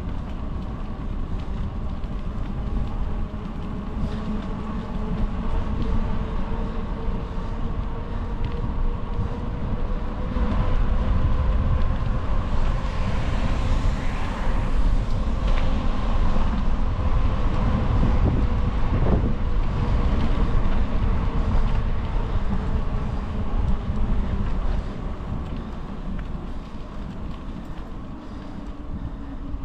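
Riding noise on a bicycle: wind buffeting the microphone over a steady hum, growing louder in the middle and easing off near the end.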